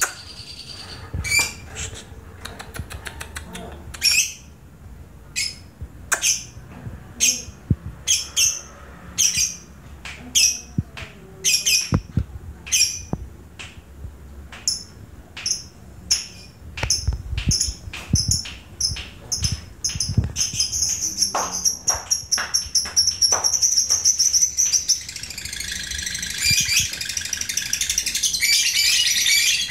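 Caged lovebird calling: short, sharp, high chirps repeating about once or twice a second, coming faster about two-thirds of the way through, then running together into a continuous chattering trill near the end, the long 'ngekek' song that fighter lovebirds are kept for.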